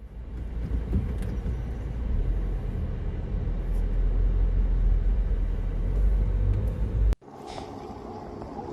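Strong wind buffeting the microphone: a deep, steady rumble. It cuts off suddenly about seven seconds in, and a quieter, different recording takes over.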